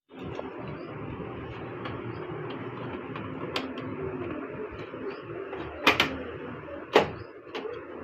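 A few sharp clicks and knocks over steady background noise. The loudest are a quick double click about six seconds in and a single knock about a second later.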